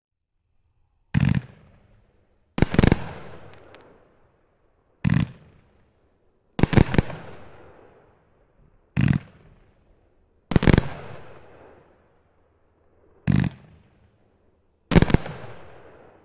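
Rogue Nation 25-shot, 500-gram consumer fireworks cake firing: eight loud booms, spaced roughly in pairs about a second and a half apart. Each boom fades in a trailing rumble over a second or two.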